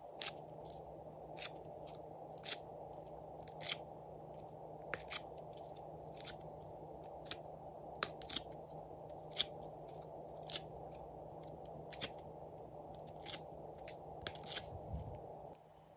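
Small coloured pieces being pressed and popped out of the cells of a plastic mould tray: irregular sharp clicks and crackles, about one or two a second, over a steady low hiss.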